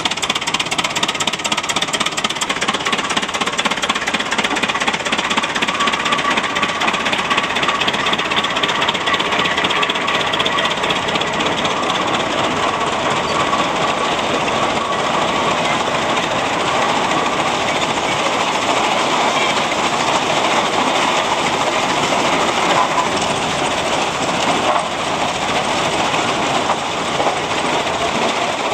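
Large antique gasoline tractors on steel lugged wheels driving past, their engines running with a rapid, even beat.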